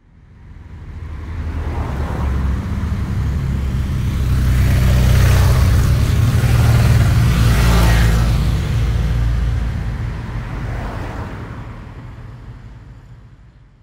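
Motorcycle engine coming up out of silence, loudest a little past the middle, then fading away: a motorcycle approaching, passing by and going off into the distance.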